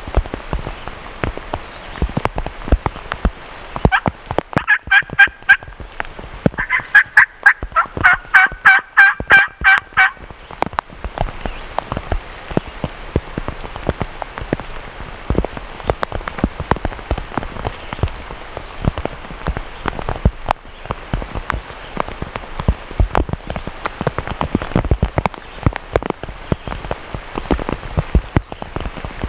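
Turkey calling: two runs of rapid, repeated yelping notes, the second longer and louder, over steady rain pattering and dripping.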